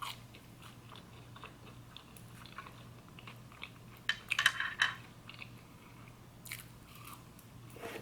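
A person eating close to the microphone: quiet chewing and small mouth clicks, with a louder crunching bite about four seconds in and another short sharp sound about six and a half seconds in.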